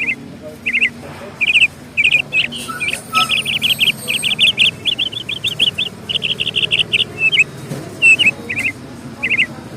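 A bird chirping: short clusters of quick high notes every second or so, with a longer run of rapid repeated notes about three to five seconds in.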